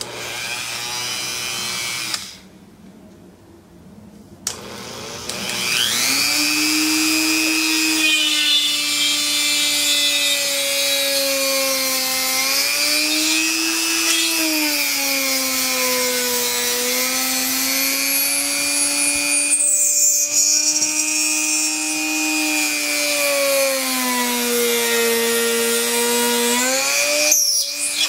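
Dremel rotary tool in a drill-press jig, drilling into plywood. The motor runs, stops a couple of seconds in, then restarts with a rising whine at about four and a half seconds. Its pitch then sags and recovers as the bit bites into the wood.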